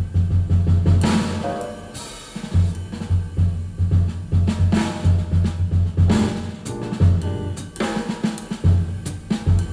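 Recorded music played back over Avalon Acoustics loudspeakers in a listening room: a drum kit with sharp snare and kick hits over a deep, pulsing bass line.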